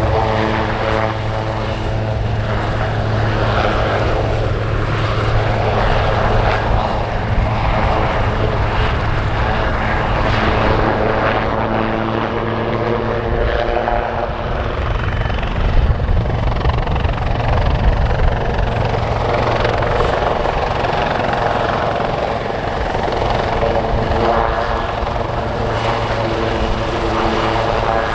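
Royal Navy AW159 Wildcat helicopter flying low and manoeuvring: the steady beat of its rotors over the whine of its twin turboshaft engines, the tone shifting and sweeping as the aircraft turns.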